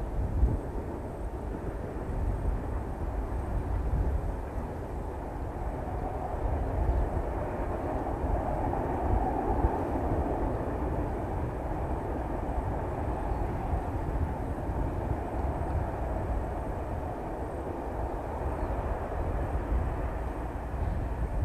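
Distant rumble of NSW 44 class and 45 class ALCO diesel locomotives hauling a train, growing a little louder in the middle as they pass, over gusty low noise.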